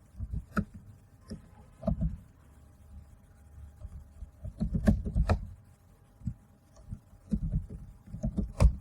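Irregular clusters of computer keyboard keystrokes and clicks, heard as dull thumps through the desk, while an email address is typed into a form.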